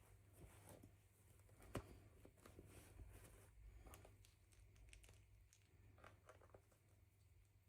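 Faint clicks and rustling of small plastic doll pieces and packaging being handled, with one sharper click about two seconds in.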